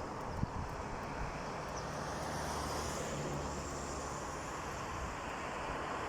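Steady outdoor background noise with a low engine-like hum that comes in about a second and a half in and fades after about four seconds.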